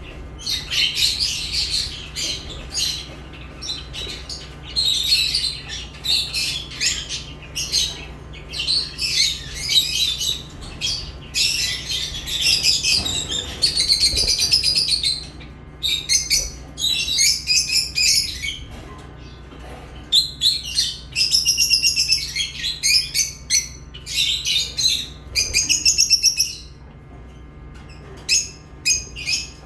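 Lovebirds chirping in rapid, shrill bursts, almost without pause, with a short lull near the end.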